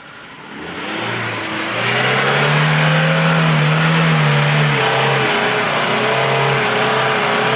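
Lada Niva engine revved hard under load. It climbs over the first two seconds, then holds at high revs with the pitch rising and dipping.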